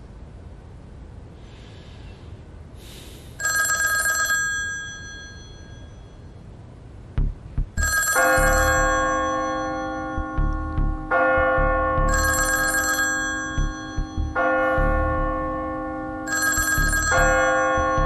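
Antique desk telephone's bell ringing: four rings about four seconds apart, the first about three seconds in, over tense background music of sustained chords with low thumps.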